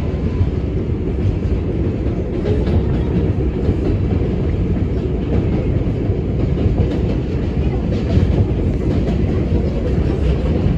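New York City Subway 4 train running on the elevated line, heard from inside the car as it pulls out past a station: a steady, loud rumble of wheels on rail and running gear.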